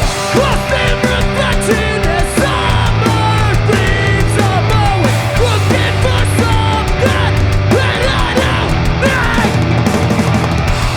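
Hardcore punk band playing loud and live: distorted electric guitars, bass and drums.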